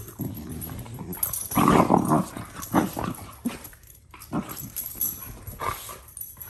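Two hound dogs play-fighting, making short growls and grumbles at each other, with the loudest burst about a second and a half in.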